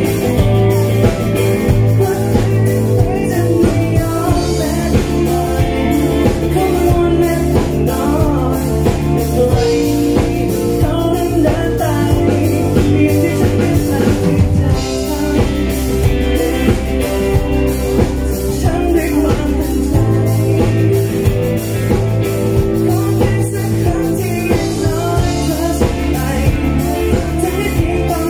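Live pop band performance: a man and a woman singing together over electric guitar and a Nord Stage 3 keyboard, with bass and a steady beat.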